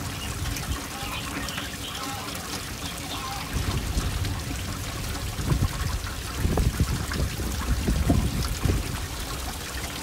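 Wind buffeting the microphone: a low, gusty rumble that swells from about three and a half seconds in and comes in uneven gusts until near the end, over a steady outdoor hiss.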